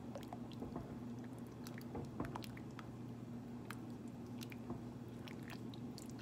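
Wooden spoon stirring thick, chunky stew in an enamelled pot: soft wet squelching with scattered light clicks, over a steady low hum.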